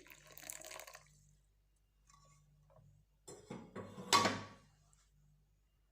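Hot water poured onto the ingredients in a kitchen vessel, with light clinks of dishes. The loudest pour is about three and a half to four and a half seconds in.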